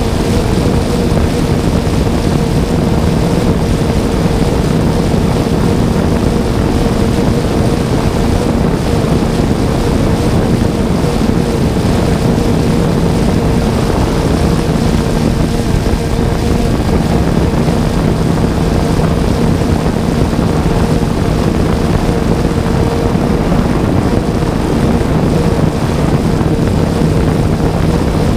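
3DR Solo quadcopter's electric motors and propellers running steadily, a constant whirring hum with several held tones, picked up close by the GoPro mounted on the drone itself.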